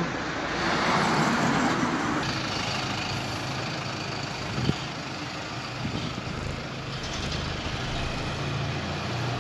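Bus engine running as the bus pulls away from the stop and drives off, fading slightly, with a hiss in the first couple of seconds and a single sharp knock about halfway through.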